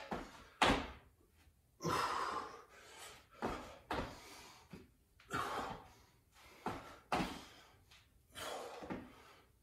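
A man breathing hard from exertion, with sharp exhales and gasps every second or two, mixed with the thuds of sneakers stepping and landing on a wooden floor during quick squat-and-crossover footwork.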